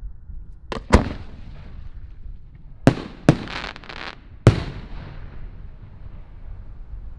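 Aerial fireworks going off: five sharp bangs over about four seconds, the second one loudest, each trailing off with an echo, with a hiss after the fourth bang.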